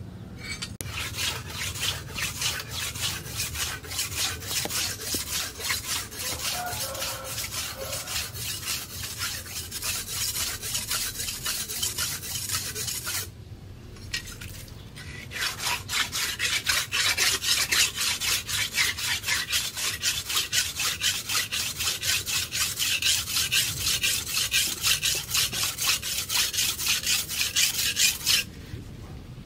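Steel machete blade being hand-sharpened, with quick, even back-and-forth rasping strokes of about three to four a second. The strokes stop for about two seconds roughly halfway through, then start again.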